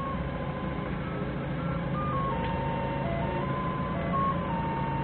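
Forklift engine running steadily under load while its reversing alarm sounds a string of held electronic tones that step from pitch to pitch like a simple tune.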